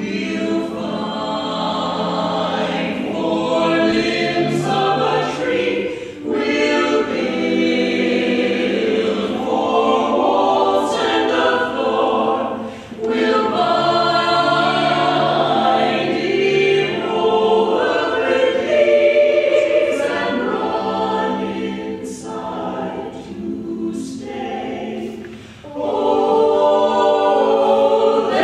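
Mixed vocal ensemble of men and women singing a song in harmony, in long phrases broken by brief pauses.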